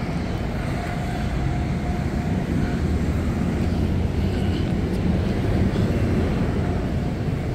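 City road traffic: a steady rumble of buses and cars running along a busy street.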